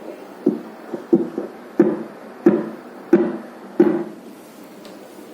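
Fetal Doppler's loudspeaker sounding a simulated fetal heartbeat from a fetal heart simulator set to 90 beats per minute: six even pulsing beats, about one and a half a second, that then stop.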